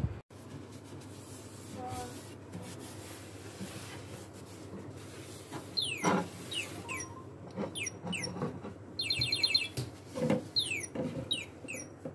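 A bird chirping: a string of short chirps, each falling quickly in pitch, starting about halfway through, with a fast trill near the end. A few light knocks of objects being handled in a wooden cabinet come with them.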